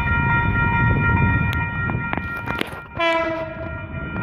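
NSW V set electric train approaching and giving one short horn blast about three seconds in, over a low rumble. A steady multi-tone warning sound from the level crossing alarm runs underneath.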